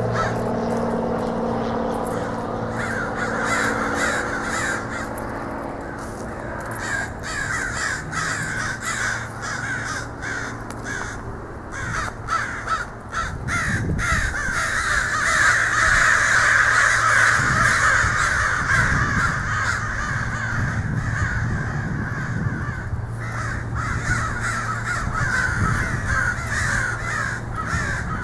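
A large flock of American crows cawing all at once, many overlapping calls in a continuous din that swells loudest in the middle.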